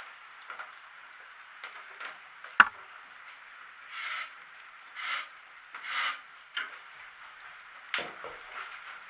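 Faint handling noises: one sharp knock, then three rubbing scrapes about a second apart and a few light clicks, over a low steady hiss.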